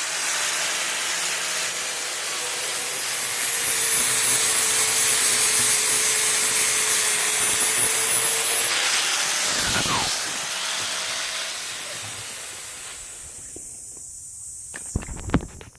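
Electric angle grinder grinding down fresh welds on a steel truck frame to check that they penetrated. Its high motor whine sags when the disc is pressed on, rises again when it is eased off about nine seconds in, and the grinder winds down near the end.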